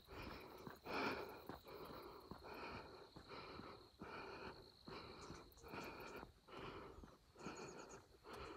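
A person breathing hard in a steady rhythm, about two puffs a second, out of breath from exercise.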